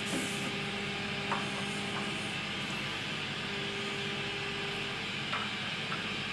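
Steady background hum and hiss, with a few faint light clicks from small objects being handled.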